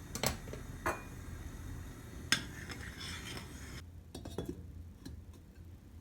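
Kitchen clatter of dishes and cutlery: a few separate sharp clinks of crockery and utensils, the loudest about two seconds in, fainter ones in the second half.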